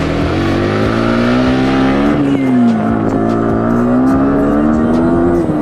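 Yamaha R15 M's 155 cc single-cylinder engine revving hard in first gear as the bike is ridden through water. The pitch climbs, dips briefly about two seconds in, climbs again, then drops off near the end.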